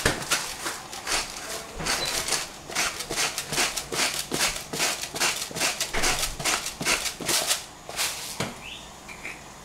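Kirkland salt grinder being twisted by hand: a run of gritty grinding clicks, about three or four a second, that stops about a second before the end.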